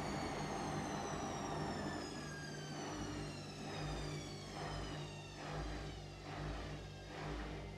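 Washing machine spinning down at the end of a spin: the motor's whine falls steadily in pitch and fades about halfway through. It is followed by a low, even pulse a little more than once a second as the drum turns slowly.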